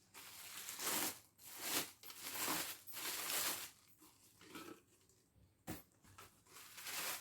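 Packaging rustling and crinkling as it is handled around a new table-top blender, in a series of short irregular bursts, with a single sharp knock a little before six seconds in.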